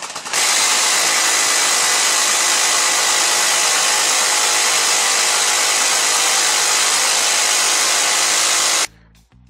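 Multi-barrel rotary minigun firing one long continuous burst, the shots so fast that they run together into one steady sound. It cuts off suddenly near the end.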